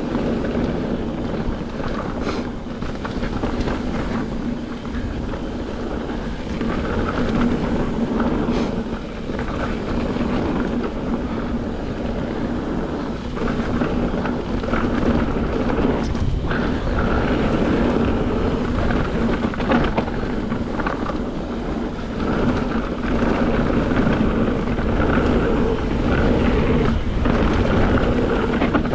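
Mountain bike descending a rough gravel trail, recorded on the rider's GoPro: tyres rolling and crunching over loose stones, with frequent knocks and rattles as the bike jolts over rocks, and wind rushing over the microphone. A steady buzz runs underneath throughout.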